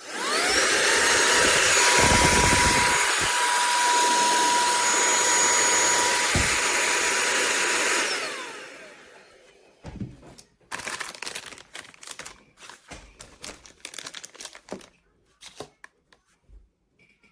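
Cordless handheld vacuum cleaner switched on: its motor spins up to a steady high whine over rushing air, runs for about eight seconds, then is switched off and winds down. Scattered clicks and knocks follow.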